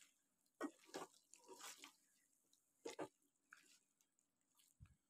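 Several faint, short scrapes and squelches of a plastic spatula stirring thick chicken karahi gravy in a non-stick wok.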